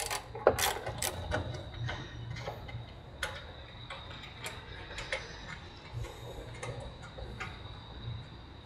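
Small irregular metallic clicks and ticks of a T10 Torx key turning out a headlight mounting screw, busiest in the first second and a half and sparser after.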